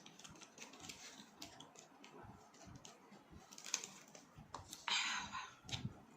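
Close-up eating sounds: many small scattered clicks of chewing and utensils, and one louder noisy burst about five seconds in that lasts about half a second.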